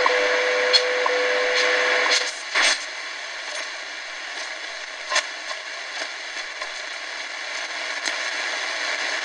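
Shortwave time-signal broadcast through the small speaker of a KNSTAR RX-608ACW portable radio: a steady tone near 500 Hz with ticks about once a second. About two seconds in the tone stops, leaving static hiss with scattered crackles and pops.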